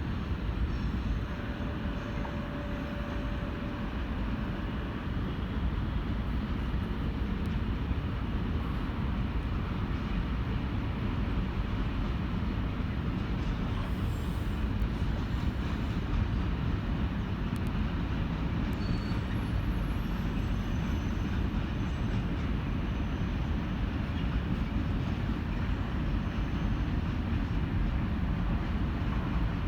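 Container freight train rolling past, a steady continuous rumble of wagons on the rails.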